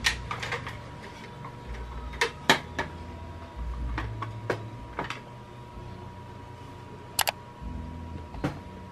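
Glass and plastic perfume bottles being picked up and set down on a tray: scattered light clicks and taps, about a dozen, with a quick double click about seven seconds in.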